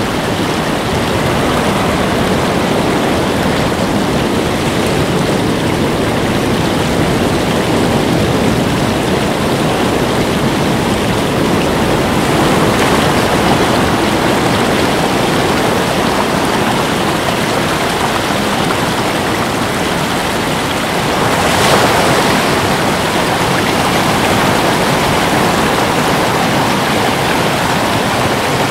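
Steady rush of ocean surf washing over a rocky shore, swelling briefly louder about three-quarters of the way through.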